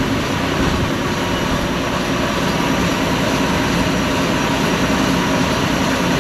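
Cook's AC 36 bandsaw mill's engine running steadily.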